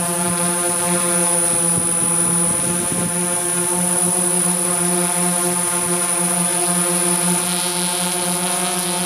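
Multirotor camera drone's motors and propellers buzzing steadily at a constant pitch, with a thin high whine above.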